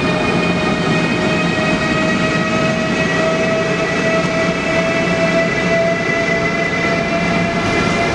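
Train running, its rail noise steady, with a whine that slowly rises in pitch.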